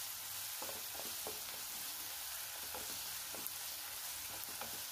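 Chopped onion and tomato sizzling in hot oil in a frying pan while a spatula stirs them, a steady sizzle with a few soft taps of the spatula against the pan. The masala base is being sautéed with ginger-garlic paste, salt and turmeric.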